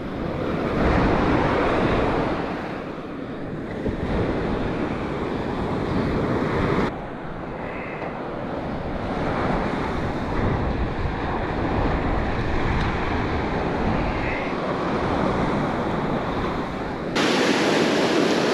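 Surf washing onto a sandy beach, with wind buffeting the microphone. The steady rush drops and jumps abruptly twice.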